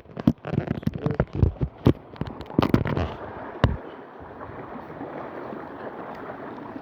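Irregular bumps and crackles on the microphone for about three and a half seconds, then a steady hiss of wind and sea water.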